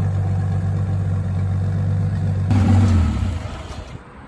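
A vehicle engine running with a steady low hum. About two and a half seconds in it swells louder with a brief rising tone, then fades away.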